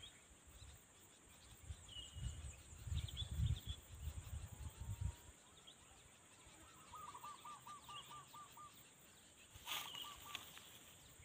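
Outdoor ambience of birds calling over a steady high insect drone: a few short chirps early on, a quick run of about eight repeated notes about seven seconds in, and a shorter run near the end. Low rumbling on the microphone in the first half.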